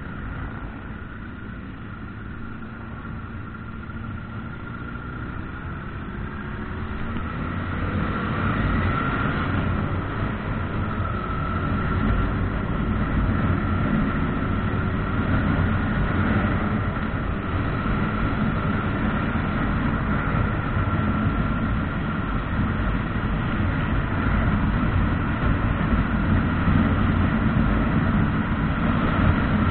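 A motorcycle's engine heard from the rider's seat, rising in pitch and getting louder as the bike accelerates through the gears, then running steadily at cruising speed along with road and wind noise.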